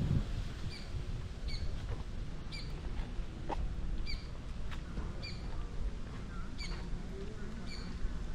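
A bird calling over and over, a short high chirp repeated about once a second, over a low outdoor rumble.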